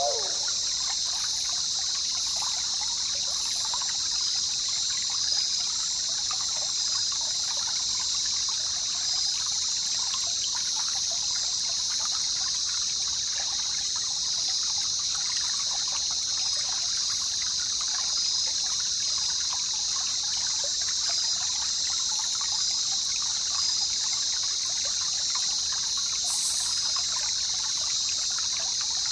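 River water trickling and babbling steadily, with a steady high-pitched drone over it and a few faint, short high chirps.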